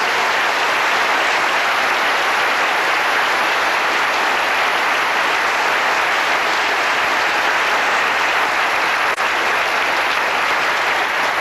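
A large audience applauding: one long, steady round of clapping.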